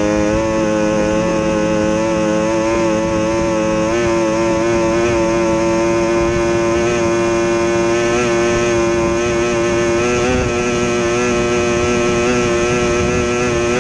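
Outboard racing engine of an SST 60 tunnel-hull boat running at full speed, heard from on board, with rushing wind and water. The engine holds a nearly steady pitch, with a brief waver about ten seconds in.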